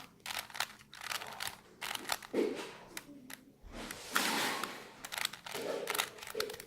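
Plastic Rubik's Cube being twisted by hand: a run of quick clicks and snaps as its layers turn, with a longer scraping rustle about four seconds in.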